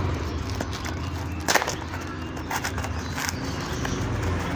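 Taped cardboard packaging handled and pulled open by hand, with scattered crinkles and clicks and one sharper crackle about a second and a half in, over a steady hum of street traffic.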